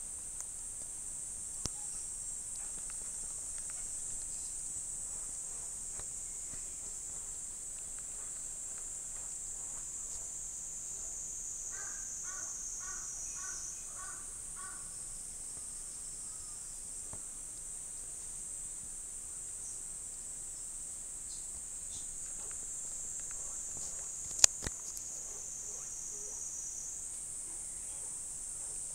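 Steady high-pitched insect chirring throughout. About twelve seconds in, a run of about seven short pitched calls lasts some three seconds, and a single sharp click comes near the end.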